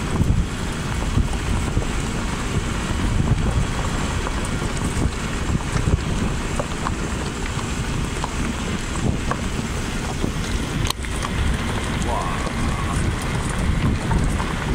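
Wind buffeting the microphone in uneven gusts: a continuous low rushing noise that rises and falls.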